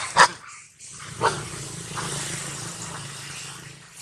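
Scuffle and cries of a frightened baby long-tailed macaque: a loud sharp burst at the start and a falling squeal about a second in, followed by a steady rustling rush of quick movement.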